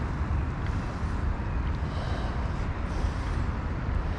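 Steady outdoor noise: wind rumbling on the microphone, with an even rushing hiss.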